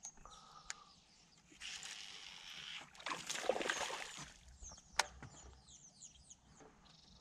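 A hooked largemouth bass splashing at the surface of the water about three seconds in, the loudest sound, with a couple of sharp clicks before and after. Faint high descending chirps follow near the end.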